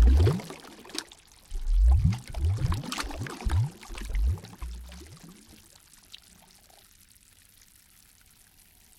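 Water sloshing and gurgling in a quick series of low surges with splashes, dying away to a faint hush about five seconds in.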